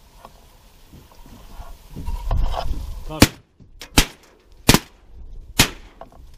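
Shotgun fired four times in quick succession, the shots a little under a second apart, starting about three seconds in.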